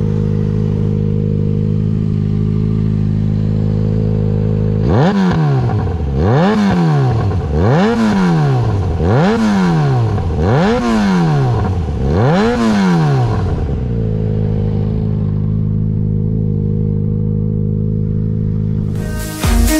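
Yamaha XJ6's 600 cc inline-four idling through a LeoVince exhaust with the dB-killer removed, then blipped six times in quick succession, each rev rising and falling back, before settling to idle again.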